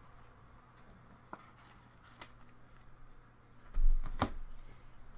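Trading cards and a clear plastic card holder being handled and set down on a table. A few light clicks, then a thump and a sharp click about four seconds in, over a faint steady hum.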